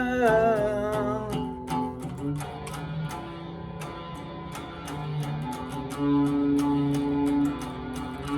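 Guitar-led music: a sung note with vibrato trails off in the first second or so, then an instrumental guitar passage with a steady beat.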